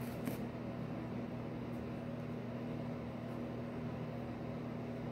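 Steady low mechanical hum, with a brief crinkle of plastic sandwich wrap just after the start.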